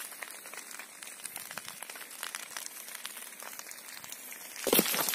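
Dense, fine crackling of dry grass and brush, with a louder rustle about four and a half seconds in.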